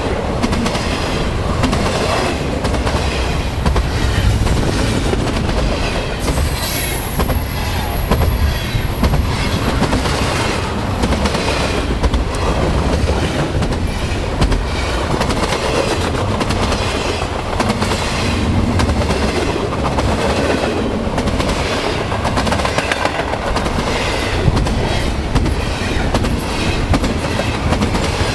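A train running, its wheels clacking in a steady rhythm over the rail joints. A thin high-pitched tone sounds for about three seconds a quarter of the way in.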